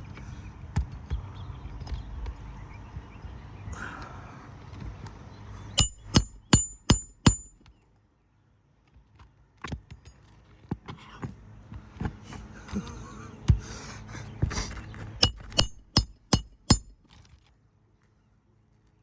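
Hammer blows ringing on metal during work on asphalt roof shingles: a quick run of five strikes about three a second, then after a short quiet gap some scraping and shuffling and another run of strikes near the end.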